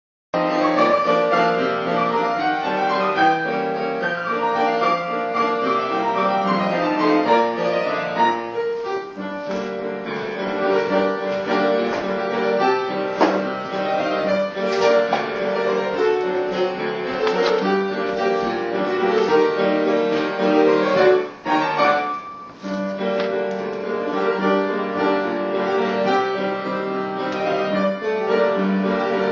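Background piano music, classical in style, starting about half a second in, with a short break in the notes near the three-quarter mark.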